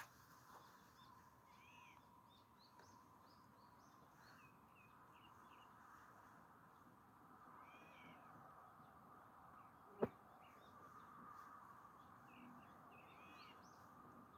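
Faint outdoor birdsong: short arching chirps recurring every few seconds over a faint steady hum. A single sharp click comes about ten seconds in.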